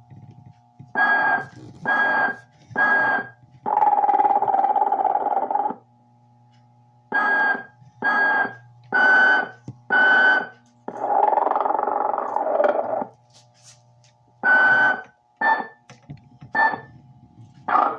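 Telco 1994 Sleeping Mrs. Santa figure playing its recorded snoring and whistling: three short whistles, a long snore, four whistles, another long snore, then four more whistles, over a steady low hum.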